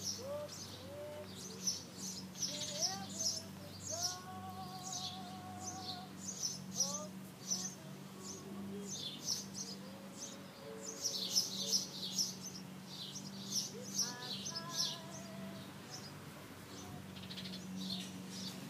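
Small birds chirping in quick short high notes, again and again, over a steady low hum. Several fainter rising and wavering calls come and go in between.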